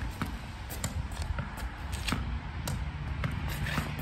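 Tennis ball rallied against a stone house wall: sharp, unevenly spaced knocks of the ball off the racket strings, the wall and the ground, over a steady low rumble.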